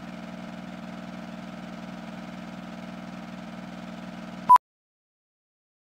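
Steady mechanical hum with a fast flutter, like the noise of an old film soundtrack running on leader. It cuts off about four and a half seconds in with one short, loud, high-pitched beep, a film-leader sync beep, followed by dead silence.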